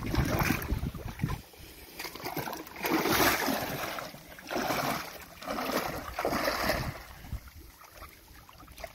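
Feet splashing as a person wades through shallow sea water over rocks, in several surges of a second or so each that fade near the end.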